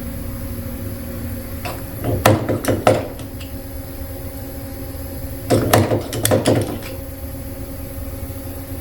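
Metal clicks and scrapes of a small flat-head screwdriver prying old packing rings out of an IOM I70 pump's packing bore. They come in two short clusters, about two seconds in and again about five and a half seconds in, over a steady hum.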